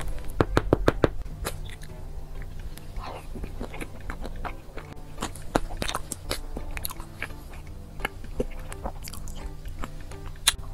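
Close-miked eating of chocolate desserts: crunchy bites and chewing, with a quick run of loud crunches in the first second, and sharp clicks and scrapes of a metal spoon scooping from a plastic dessert box. Background music plays underneath.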